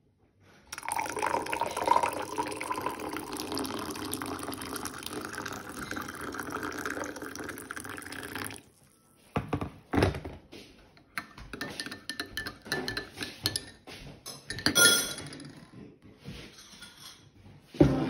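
Water poured steadily into a drinking glass for about eight seconds, then a metal spoon clinking and tapping against the glass as it stirs, the clinks irregular and loudest near the end.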